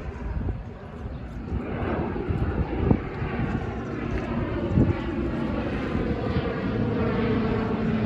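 Twin-turboprop airliner droning overhead as it climbs away, its propeller tones slowly falling in pitch while the sound grows louder.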